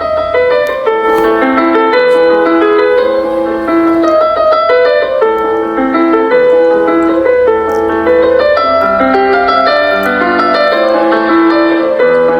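Piano music playing a melody of held, overlapping notes.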